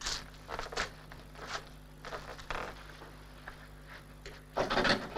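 Sparse footsteps and small clicks on a film soundtrack. Near the end comes a burst of rattling as the handle of a locked door is tried.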